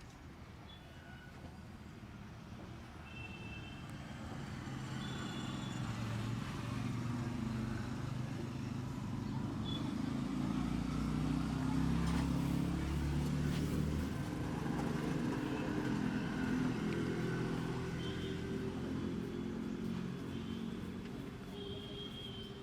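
A motor vehicle passing along the street, its engine growing louder to a peak about halfway through and then fading away.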